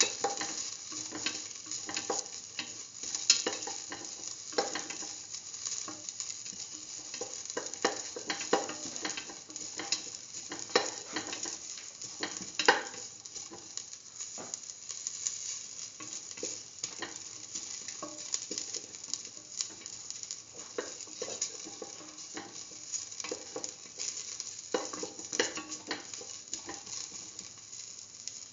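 Sliced onion and shallots sizzling in a little hot oil in a stainless steel pan, a steady hiss dotted with frequent crackles and pops as the onion sautés.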